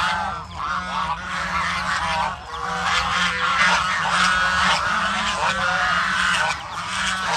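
A flock of domestic geese honking, many overlapping calls in a continuous chorus, with ducks likely among them.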